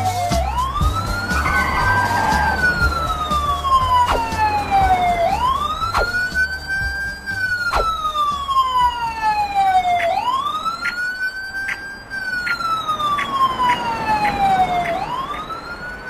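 Emergency-vehicle siren wailing: the pitch rises quickly, holds briefly, then falls slowly, in three long cycles of about five seconds each.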